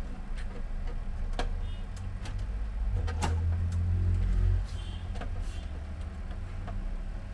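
Scattered small plastic clicks and knocks as the pulley and gear of a printer's spring-tensioned scanner belt drive are handled and fitted by hand. Under them runs a low rumble that grows louder and cuts off about four and a half seconds in.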